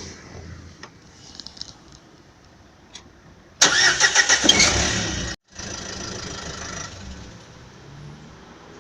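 A Renault Scenic 3 1.5 dCi diesel engine is cranked on the starter, pulsing for about a second and a half, and catches, then runs more steadily and quieter. A few faint clicks come before it. Start-up is when the worn pressed-wire sealing ring between the catalytic converter and the exhaust downpipe gives its brief squeak.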